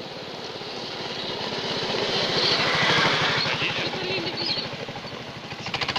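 Rental go-kart's small engine running under throttle, with rapid, evenly spaced firing pulses and a tractor-like sound. It grows louder as the kart comes close through the icy turn, is loudest about halfway through, then fades as it moves off.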